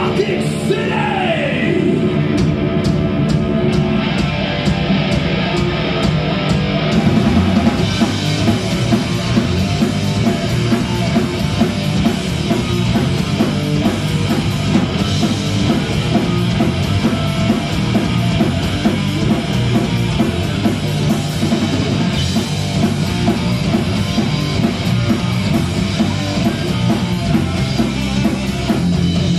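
Live heavy rock band playing: distorted electric guitar, drum kit and vocals into a microphone. About seven seconds in, the sound fills out and gets a little louder.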